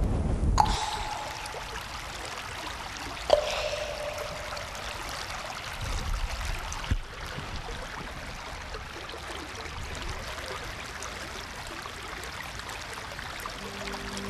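Rain and running water: a steady wash of falling water, with two sharp drop-like strikes that ring briefly, about half a second in and about three seconds in.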